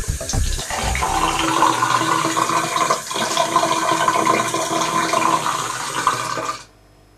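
Water running steadily from a bathroom tap into a washbasin while hands are washed under it, cutting off abruptly near the end.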